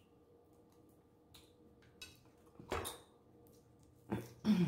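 Close-miked eating sounds from chewing crunchy fried chicken: a few short wet, crunchy mouth sounds, the loudest near the end, the last with a brief low hum that falls in pitch.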